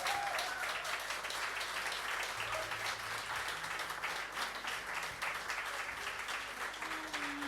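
Audience applauding after a song ends, a dense steady patter of clapping, with a voice starting to speak over it near the end.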